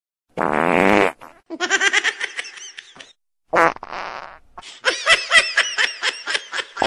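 Novelty ringtone of fart noises and laughter: a loud fart sound about half a second in, high-pitched giggling, a second fart about 3.5 s in, then more rapid high-pitched laughter.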